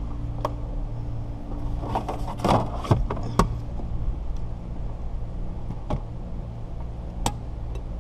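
Windshield wire-cutout tool at work, the cutting line being wound through the urethane bead: scattered sharp clicks and knocks, about six in all, over a steady low hum.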